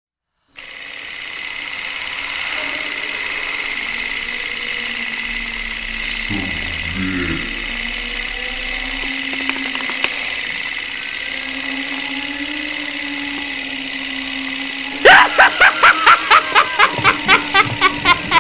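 Eerie droning intro music. About fifteen seconds in, a sudden loud, rhythmic cackling laugh begins.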